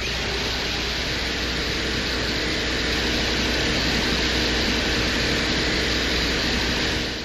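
Recorded sound of a Soviet Venera lander's soil drill running: a steady whirring noise with a faint hum beneath it, fading out near the end.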